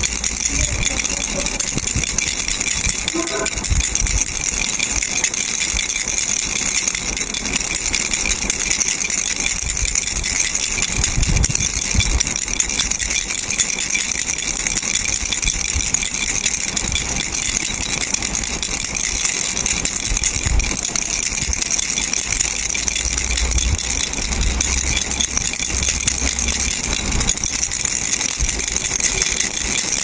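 Plastic starfish-shaped baby rattle shaken steadily by hand, giving a continuous, dense, high rattle without a break.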